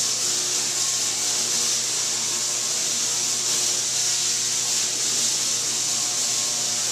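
Tesla coil firing: electric arcs leap from its top sphere to the surrounding copper cage with a steady, loud, hissing buzz that does not let up.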